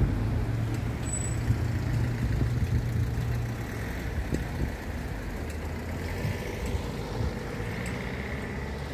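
Road traffic at an intersection: a vehicle engine running steadily close by, with tyre noise of passing cars building toward the end.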